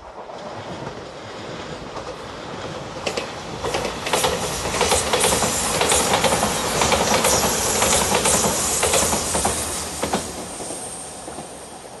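Five-car JR Shikoku 8000 series electric limited express train passing by. The rolling noise swells to a peak about four to ten seconds in, with rapid clacking of the wheels over the rail joints, then fades as the train moves away.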